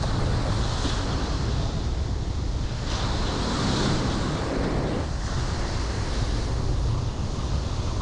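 Surf breaking and washing up a sandy beach in gale-force wind, with the wind buffeting the microphone as a heavy low rumble. The wash swells louder about three to four seconds in.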